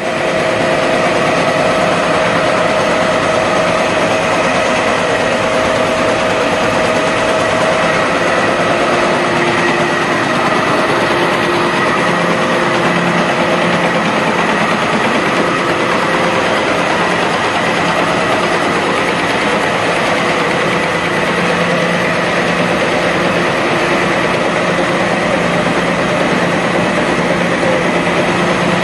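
Soudronic FBB 5600 automatic can body welder running: a loud, steady mechanical whir with several held tones in it, which shift about a third of the way through.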